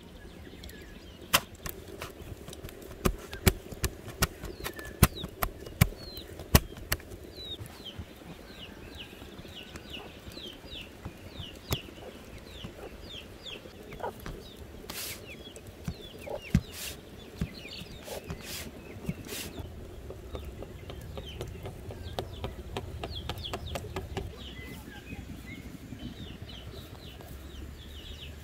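Domestic hens clucking with small birds chirping in quick short notes. A run of sharp clicks and clinks comes in the first several seconds.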